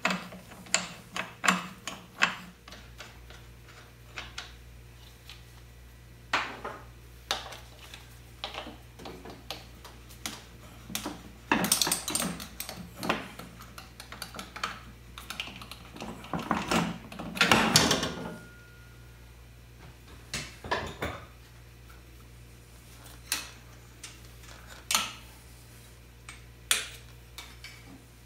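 Hand tools and steel parts of a 1961 Norton Manxman's front end clinking and clanking as it is dismantled: scattered sharp metallic clicks and knocks, a quick run of them at the start, and two longer stretches of clattering and rubbing in the middle.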